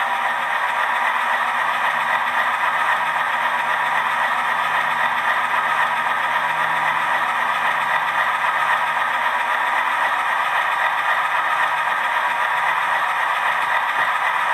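HO scale model diesel locomotive's sound decoder playing a steady diesel running sound through its small onboard speaker, mostly mid and upper tones with little bass.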